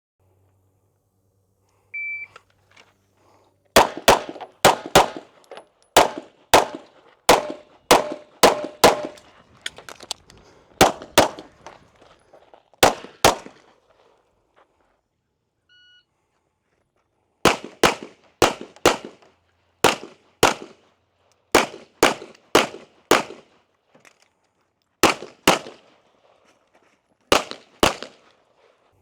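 Shot-timer start beep, then handgun shots fired mostly in quick pairs during a timed practical-shooting drill: about fourteen shots in the first string, a pause of a few seconds, and another dozen or so in pairs.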